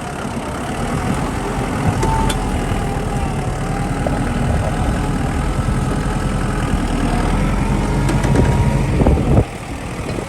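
Kubota diesel engine running steadily with a wavering whine, a few light clicks over it; the engine sound drops off suddenly about nine seconds in.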